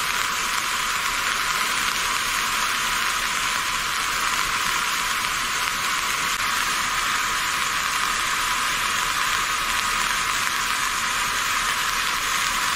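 Rain from a downpour falling in a steady, even hiss, with little low end.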